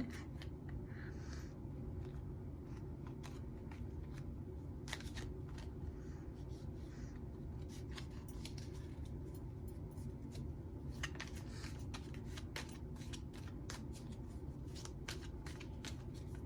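Light, irregular clicks and snaps of tarot cards being handled and shuffled, growing busier in the second half, over a steady low hum.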